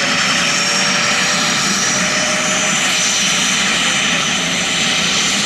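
Westland Wasp helicopter's Rolls-Royce Nimbus turboshaft running on the ground with the main rotor turning, a loud steady sound with a high turbine whine.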